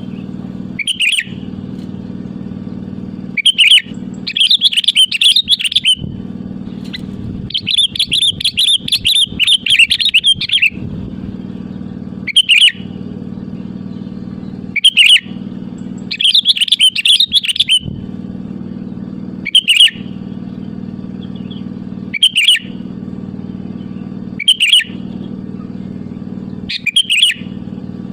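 Sooty-headed bulbul singing in full voice: short bubbling calls about every two and a half seconds, broken by three longer chattering phrases. A steady low hum runs underneath.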